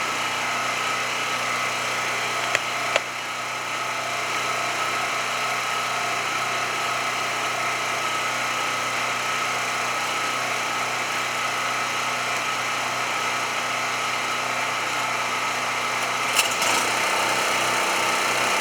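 Champion 4000-series portable generator running steadily. Near the end there is a click, and a second identical generator starts and runs alongside it, so the combined sound gets slightly louder and a new low pulsing joins in.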